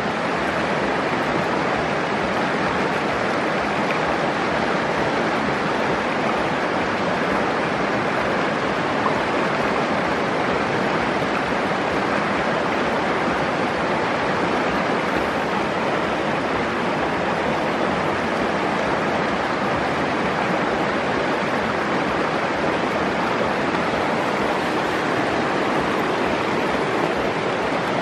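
Fast, shallow mountain river rushing over rocks and boulders: a steady, even wash of flowing water.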